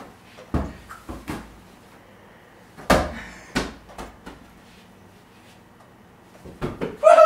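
A football kicked and bouncing in a small room: a series of dull thumps off the floor and furniture, the loudest about three seconds in.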